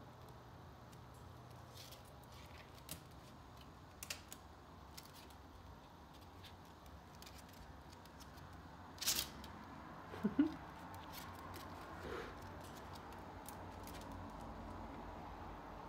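Faint scattered clicks and taps of ferrets' claws on a wire cage and its ramp as they climb between levels, with a louder scrabbling rustle about nine seconds in.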